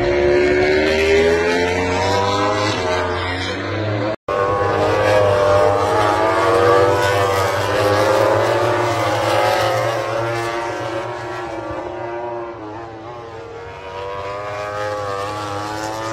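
MotoGP racing motorcycles' four-cylinder engines running at speed on the track, their pitch rising and falling as they accelerate and shift. There is a brief break about four seconds in.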